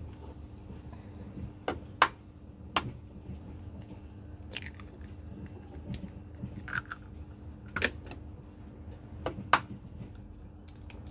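Eggs being cracked into a stainless steel plate: sharp taps and cracks of eggshell against metal, in a group about two seconds in and another from about eight to nine and a half seconds in.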